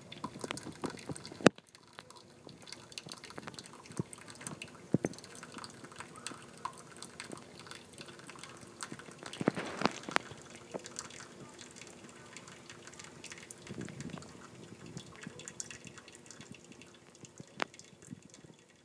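Rain dripping: irregular drops ticking and tapping over a faint wash of water, with one sharp tap about a second and a half in.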